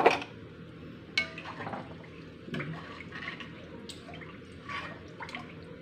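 A metal spoon stirring rice in water in an enamelled pot: a sharp knock at the start, then scattered light clinks and scrapes against the pot with soft sloshing of water.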